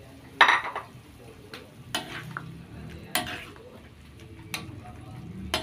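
Long metal spoon stirring soup in a metal wok, clinking against the pan about five times, the loudest about half a second in, over the soft sound of the simmering broth.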